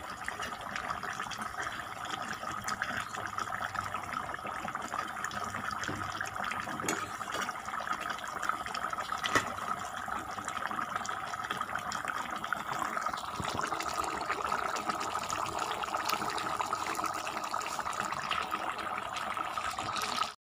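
Pork and potato curry bubbling in a pan on the stove: a steady wet simmer full of small pops.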